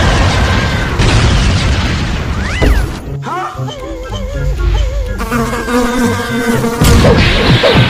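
Cartoon sound effects: a noisy crash as a tree is knocked down, then the buzzing of a swarm of bees, with short rising-and-falling pitch glides in the middle and a louder burst of noise near the end.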